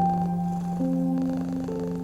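Slow, soft piano music, with new notes struck about once a second and left to ring, over a domestic cat purring steadily.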